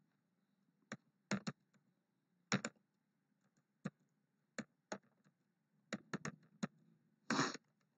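Computer keyboard keys pressed one at a time as numbers are typed in: soft, irregular key clicks with short pauses between them, about a dozen, with a slightly longer clatter near the end.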